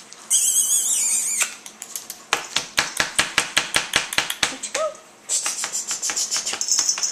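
Puppies playing rough: a high wavering squeal near the start, then a quick run of sharp clicks and taps, a short yip about five seconds in, and a rustling scratch with quick pulses near the end.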